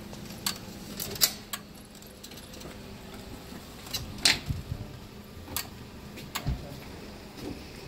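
Scattered clicks and knocks of a metal-framed glass entrance door being pushed open and a power wheelchair rolling through it, the sharpest about a second in and again a little after four seconds.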